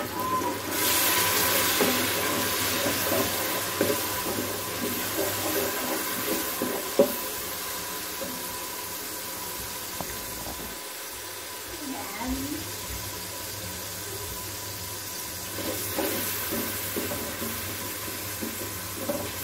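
A splash of water hitting hot oil, fried onions and ginger-garlic paste in an aluminium pressure cooker, sizzling loudly about a second in and slowly dying down to a steadier sizzle, added to keep the masala from sticking. A wooden spatula stirs and scrapes the bottom of the pot, with one sharp knock about seven seconds in.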